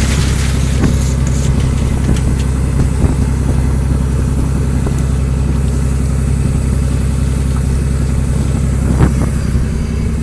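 A fishing boat's engine running steadily with a low, even hum, and an occasional knock on deck, the loudest near the end.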